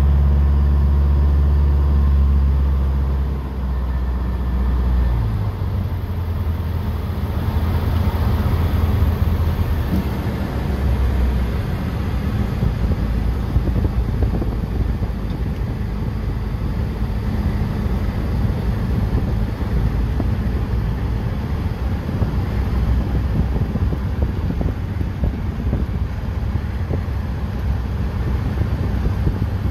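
Cessna 150's four-cylinder engine and propeller running, heard from inside the cabin over steady airflow noise while descending to land. The engine note drops in level about three and a half seconds in and settles at a lower, steady setting.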